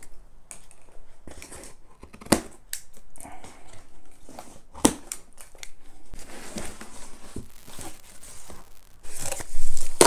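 Plastic packing straps on a large cardboard box snipped through with a sharp snap, twice, amid the rustle of loose strapping. Near the end, loud crinkling and scraping of cardboard and plastic wrap as the box is lifted off.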